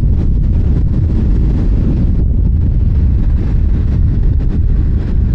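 Steady wind rush buffeting the microphone on a moving motorcycle, with the 2004 Honda VFR800 Interceptor's V4 engine running beneath it.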